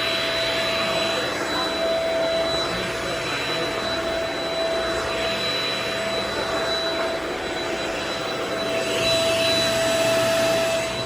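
Vacuum cleaner running over a rug: a steady motor whine over rushing air that swells and eases every few seconds as it is pushed and pulled, a little louder near the end.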